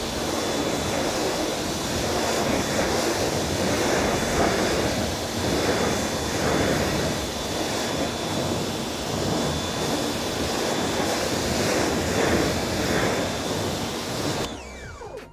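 A jet of water spraying onto a car's bonnet, rinsing off the shampoo: a steady hiss with gentle swells that cuts off abruptly near the end.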